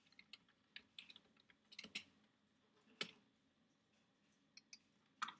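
Faint, irregular keystrokes on a computer keyboard, a few separate taps with brief pauses between them, the loudest about two and three seconds in.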